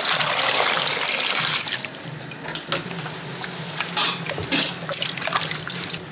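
Water running from a tap into a sink for about two seconds, then shutting off, followed by scattered clinks and knocks.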